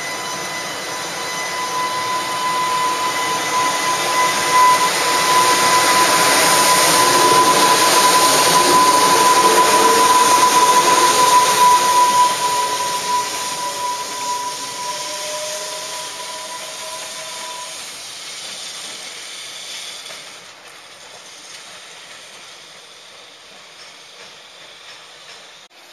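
JR Freight EH500 electric locomotive running light past at close range and away. Its running noise grows loud, peaks about ten seconds in, then fades as it recedes. Over it are a steady high whine and a second whine that rises in pitch as it gathers speed, both dying away about two-thirds of the way through.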